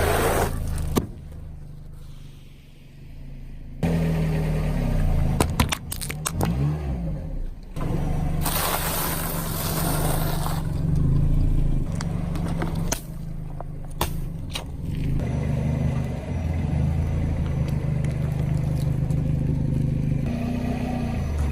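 A car engine running as the car rolls over objects, with sharp cracks and pops under the tyres and a loud hissing burst a little past a third of the way in.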